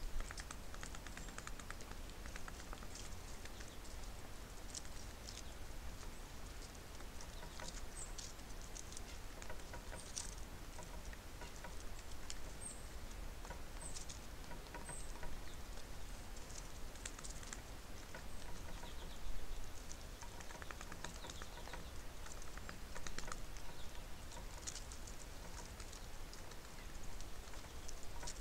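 Birds feeding at a feeder close to the microphone: a steady scatter of light tapping and scratching from beaks and feet on the feeder and seed, with a few short high chirps.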